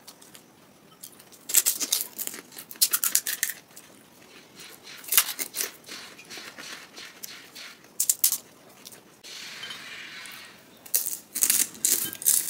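Crisp, hollow pani puri (golgappa) shells crackling and crunching in short bursts, several times over, as they are cracked open with the thumb and then bitten and chewed.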